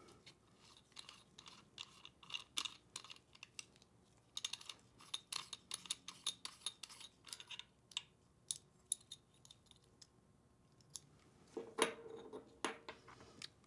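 Faint scattered metal clicks and ticks as the air cap and its retaining collar are unscrewed by hand from the front of an M-Model HVLP spray gun. Near the end, a few louder knocks as the loose parts are set down on a wooden bench.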